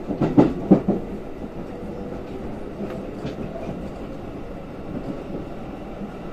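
Passenger train running, heard from inside the car: the wheels clunk over the rails a few times in the first second, then roll on with a steady rumble.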